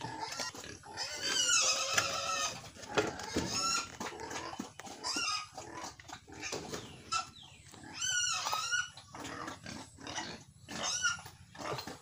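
Pigs squealing: several high, wavering squeals in turn, the loudest about eight seconds in.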